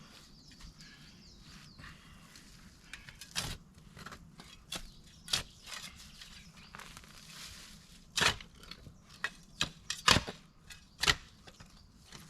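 Irregular sharp wooden knocks and cracks, about six of them spread unevenly, the loudest bunched in the last few seconds, typical of wood being chopped, split or knocked together while working at a camp.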